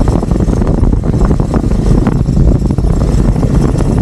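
Motorcycle on the move: the engine running under a loud, low rumble of wind buffeting the microphone.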